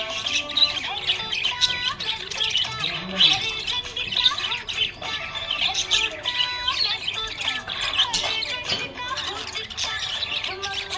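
Budgie chirping and warbling in a continuous stream of quick, high chirps and squawks.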